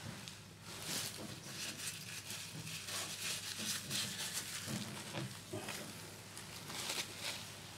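A cleaning wipe rubbed around a bath's plastic waste flange, wiping off excess plumber's gold jointing compound. It gives faint, uneven rubbing strokes, a few of them stronger.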